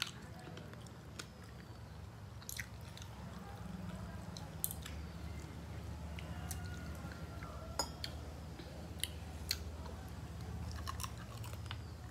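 Close-up chewing and wet mouth smacks of people eating rice and curry with their hands, with scattered sharp clicks, over a steady low hum.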